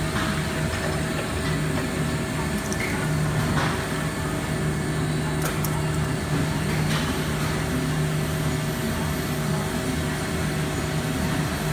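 Automatic horizontal band saw running with a steady hum while its vise feeds a bundle of square steel tubing forward under the raised blade, with a few faint clicks partway through.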